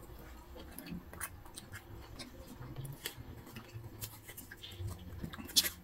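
Small folded paper slip rustling and crinkling faintly as it is picked from a pile and unfolded by hand, with a louder crinkle near the end.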